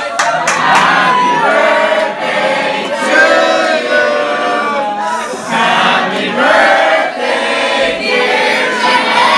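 A crowd of people singing loudly together.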